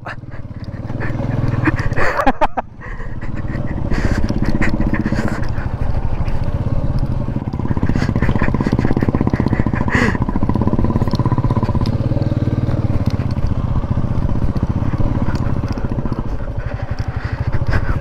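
Royal Enfield Meteor 350's single-cylinder engine running steadily at low revs in a low gear as the bike climbs a rough, rocky dirt track, with scattered knocks from the stony ground. The engine sound dips briefly about two and a half seconds in, then runs on evenly.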